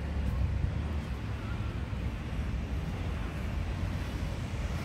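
Outdoor street ambience: a steady low rumble of distant traffic.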